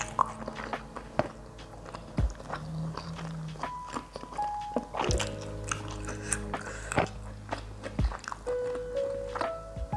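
Person eating with open-mouthed chewing, biting and occasional crunches, over background music with long held notes.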